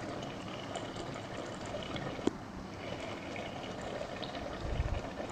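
Rice simmering in coconut milk in an open pot: a steady bubbling and fizzing with small crackles. A sharp click comes about two seconds in, and a few low thumps near the end.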